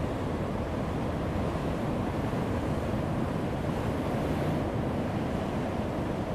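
Heavy ocean waves breaking on a rocky shore: a steady, deep rush of surf, with a brighter wash of water about four seconds in.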